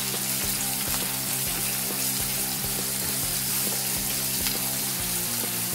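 Sliced onions frying in hot oil in a pan, a steady sizzle, with the soft scrape and knock of a wooden spatula stirring them; the onions have just gone into the oil. Faint background music underneath.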